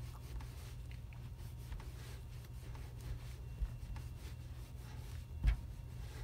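Faint rubbing of a cloth wiping a rubber vacuum-bin gasket down with an Armor All-type protectant, over a steady low hum, with a soft thump about five and a half seconds in.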